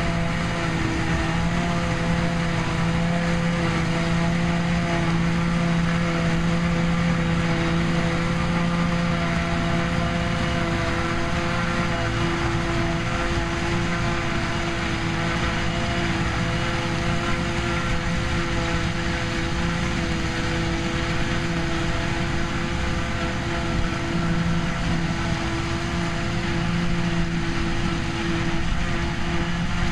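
Trailed JF forage harvester and its New Holland tractor running steadily under load while chopping grass from the swath and blowing it into a silage trailer, alongside the drawing-in tractor's engine. The sound is a constant machine drone with a steady hum.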